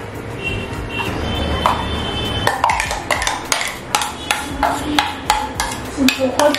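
A metal spoon knocking repeatedly against a steel kitchen vessel, about three sharp knocks a second with a short ring after each, starting about two and a half seconds in after a low steady hum.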